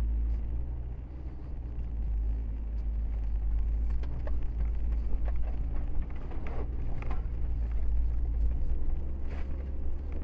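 A Nissan Expert's engine running, with a steady low rumble heard from inside the car's cabin as it creeps along a muddy, rutted track. A few sharp knocks and clicks come through around the middle and once near the end.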